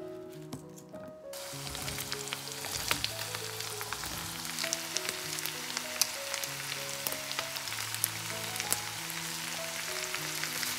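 Potatoes, carrots and onion frying in oil in a pan: a steady sizzle with frequent crackles, starting suddenly about a second in. Soft background music plays throughout.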